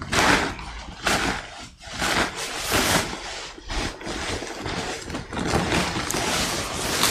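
Dry chopped straw rustling and scraping as it is scooped up by hand, in repeated surges about once a second.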